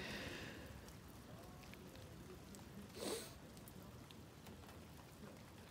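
Faint storm ambience: a low steady background rumble with scattered light ticks of raindrops. There is one short breathy noise, like a sniff, about three seconds in.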